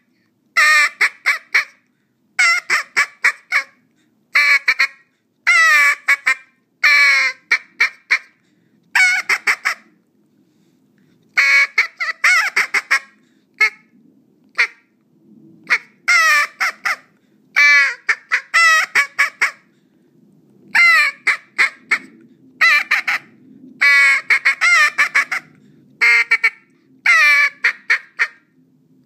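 A TurboTeal hen teal call, a duck call, blown in short runs of quick, high-pitched quacks. Each run lasts about a second, with brief pauses between runs, and some notes fall in pitch.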